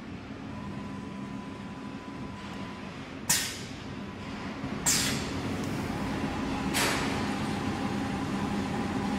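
CNC router with an automatic tool changer cycling through a tool change: three sharp hisses of compressed air about 3, 5 and 7 seconds in, as the pneumatic spindle clamp releases or blows clean. They sound over a steady machine hum with a faint whine.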